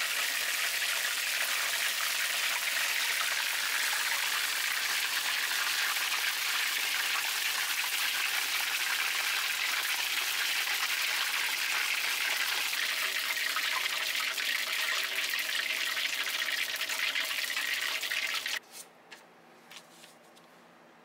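Octopus tempura deep-frying in hot oil: a steady, dense sizzling and crackling of oil bubbling around the battered pieces. It cuts off suddenly near the end, leaving near quiet with a few faint ticks of paper being handled.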